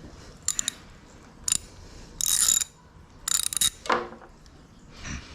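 Hand ratchet wrench clicking in several short bursts of rapid ticks, with a few single clicks between them, as a bolt is worked.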